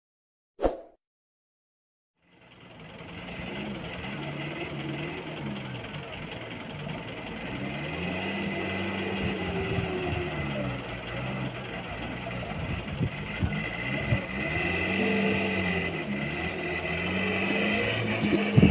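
A light truck's diesel engine revving up and easing off again and again as the truck labours through deep mud, starting about two seconds in. A short sound comes about half a second in, before the engine is heard.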